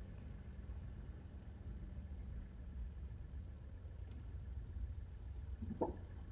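Low, steady rumble of a moving vehicle on the road, with a faint click about four seconds in.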